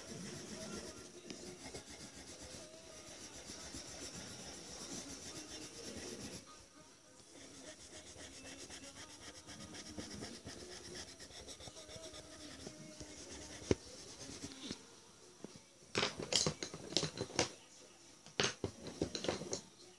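Coloured pencil strokes rubbing and scratching on heavy mixed-media paper, an even scratchy shading sound. Near the end comes a run of louder, sharper scrapes.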